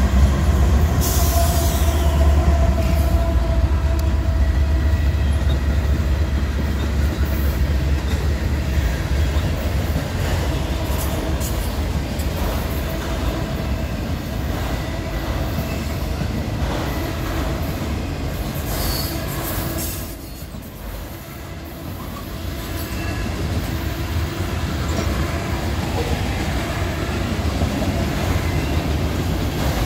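A freight train passing close by: the deep engine rumble of the mid-train diesel-electric locomotives, a GE C44-9W and ES44AC, for the first several seconds, then autorack and hopper cars rolling past with wheel squeal and rail clatter. The rumble eases after about ten seconds and the sound dips briefly about two-thirds through.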